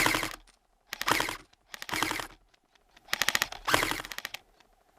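Airsoft guns firing in short full-auto bursts, about five bursts of rapid cracking shots with brief pauses between them.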